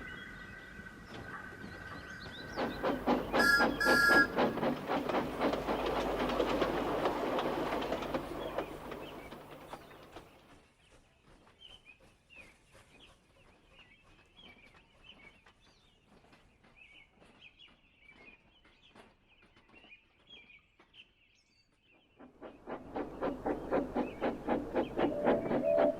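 Steam locomotive whistle blowing, then a steam engine puffing in rapid, even chuffs with a short whistle blast, fading away. Birds chirp faintly in the quiet. Then another steam engine chuffs in, louder and louder, whistling near the end.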